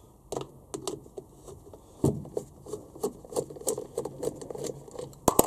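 An 8mm socket on a T-handle is turning out the bolts of a Honda distributor cap, making small irregular metal clicks and taps. A sharper double click comes near the end.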